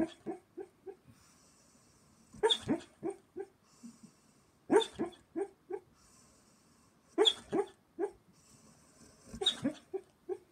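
German shepherd barking in her sleep while dreaming: five bouts about every two and a half seconds, each a louder woof followed by several shorter, quieter ones.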